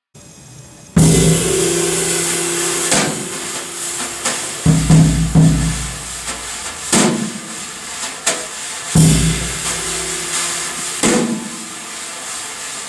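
Jazz drum kit with Meinl cymbals starting about a second in: cymbal crashes and wash together with heavy low drum hits, accented roughly every two seconds, with low notes ringing between them.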